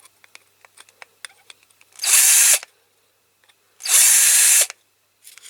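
Small electric drill run in two short bursts of about half a second each, drilling out a rivet on a diecast toy car with a larger bit, the motor slowing as each burst ends. Light clicks of handling come between the bursts.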